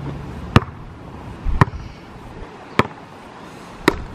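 A basketball being dribbled on an asphalt street: four sharp bounces, roughly a second apart.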